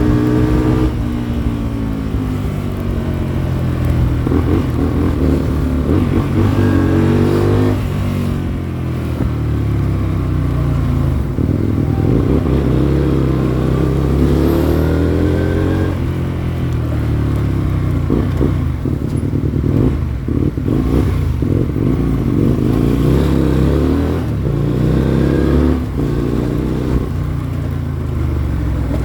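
Hyosung Comet GT250's V-twin engine running under load. It climbs in pitch for a few seconds and drops back sharply, about three times.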